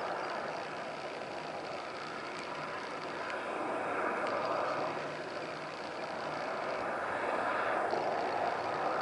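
Steady, muffled rush of water over an underwater camera as it moves along, with a faint steady whine underneath.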